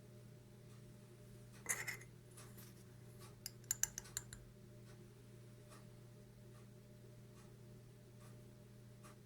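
Faint light clicks and a brief scrape of small objects being handled on a desk, over a steady low hum: a short rustle about two seconds in, then a quick cluster of sharp clicks a second or so later.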